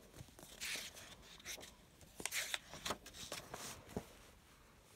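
Faint rustling and sliding of paper, a series of short rustles and soft clicks, as a picture book's cover is opened and its pages turned by hand.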